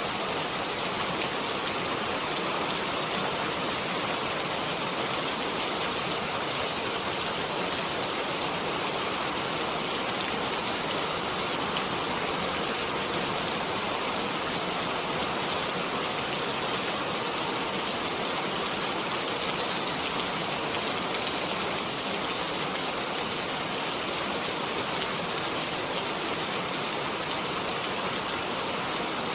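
Steady rain falling, an even hiss of many fine drops with no gusts or breaks.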